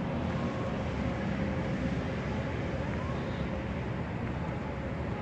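Steady low outdoor rumble with a faint steady hum through it.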